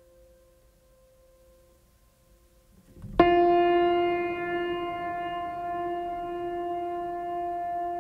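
Background music: soft held tones, then about three seconds in a loud sustained chord starts abruptly and holds.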